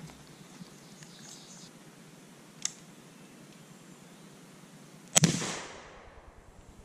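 A single shot from a .36 caliber Traditions Shenandoah percussion rifle, fired about five seconds in on a light load of 20 grains of Pyrodex 3F, with a ringing tail of about a second. A sharp click comes a couple of seconds before the shot.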